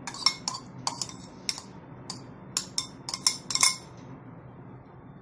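Metal spoon clinking against a ceramic plate and bowl while fried onions are scooped out: about a dozen sharp clinks in the first three and a half seconds, then they stop.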